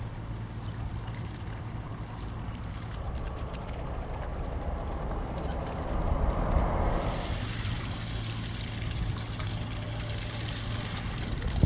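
A passing canal passenger ship's engine running as a steady low drone, with a swell of water and wash noise as the hull goes by about six seconds in.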